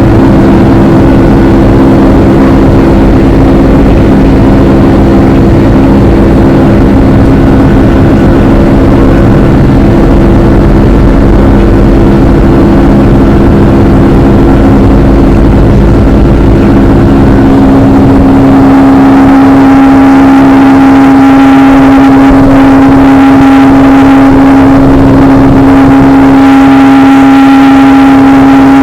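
Boeing 757-200 jet engines running with a loud, steady drone of several held tones and a heavy low rumble. About two-thirds of the way through, the rumble drops away and the engine tones change pitch.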